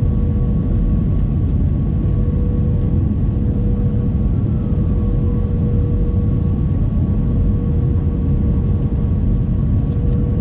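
Airbus A320 cabin noise heard from a window seat over the wing at low altitude on approach: a steady low rumble of engines and airflow with a constant hum running through it.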